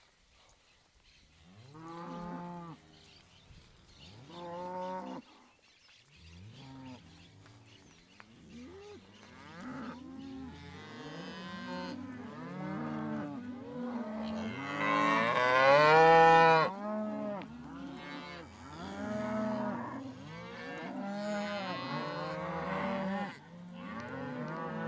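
Herd of beef cows with young calves mooing: two single calls at first, then from about six seconds on many calls overlapping, the loudest about fifteen seconds in.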